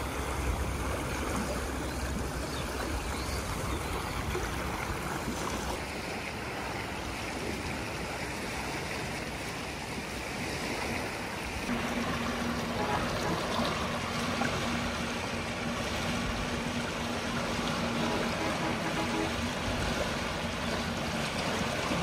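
A fast-flowing river in flood, its muddy current rushing and churning in a steady wash of water noise. About halfway through, a steady low hum joins in and runs until near the end.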